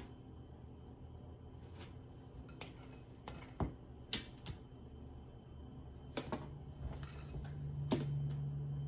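A spoon clinking and tapping against a glass mixing bowl and a metal cookie sheet as biscuit dough is scooped out and dropped by spoonfuls, in a handful of sharp, scattered clicks. A low steady hum comes in about six seconds in.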